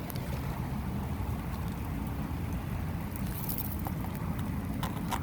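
Freezing rain falling and pattering on ice-glazed surfaces, with faint scattered ticks over a steady low rumble. A few sharper clicks come near the end.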